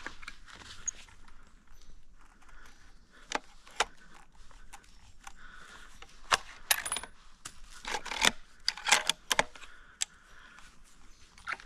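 Footsteps through dry leaf litter, with a run of sharp clicks and clinks, loudest from about six to nine seconds in.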